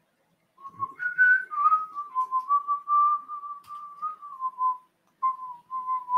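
A tune being whistled: a run of clear held notes that glide from one pitch to the next, with a short break near the end.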